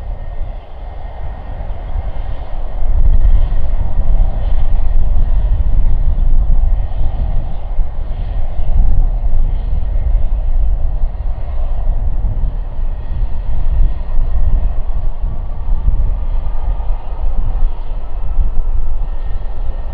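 Four Rolls-Royce Trent 556 turbofans of an Airbus A340-600 running at low taxi power as the airliner lines up: a steady jet rumble and hiss. A faint whine rises slowly in pitch over the last several seconds.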